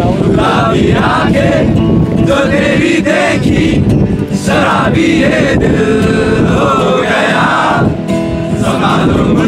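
A group of students singing a song together to an acoustic guitar.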